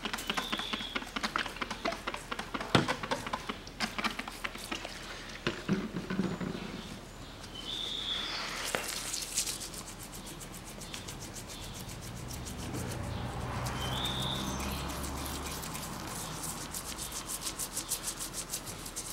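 Rubbing and scraping on the combustion chambers of a cylinder head, cleaning off softened carbon deposits. There are many small clicks of the tool on the metal in the first few seconds, then a rough, steady scratching with fast, even ticks.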